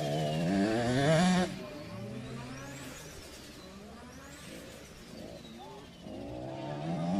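Two-stroke 65 cc motocross bike engine revving, with the pitch climbing for about a second and a half before the revs drop off sharply. It then runs lower and quieter until the revs climb again near the end.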